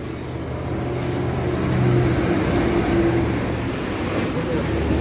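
A motor vehicle engine running close by, growing louder over the first two seconds, then holding a steady low hum.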